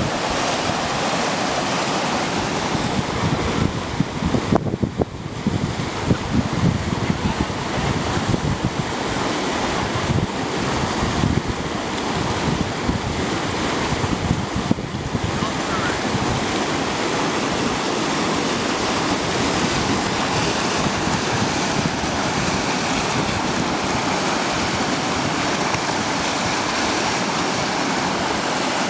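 River whitewater rushing steadily around a raft in the rapids, with wind buffeting the microphone in gusts during the first half.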